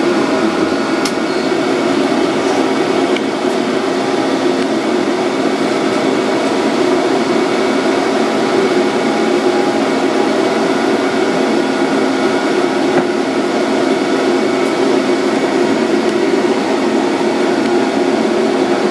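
Steady electric hum and whir of a Centram low-floor tram's onboard equipment heard inside the driver's cab, several steady tones over an even fan-like noise with no change in pitch.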